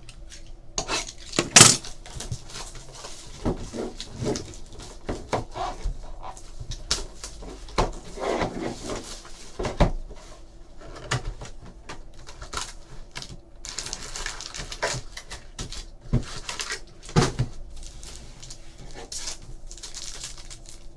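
Hands opening a sealed box of trading cards and taking out the packs: irregular rustling, tapping and clicking of cardboard and wrapper, with a sharp knock about a second and a half in.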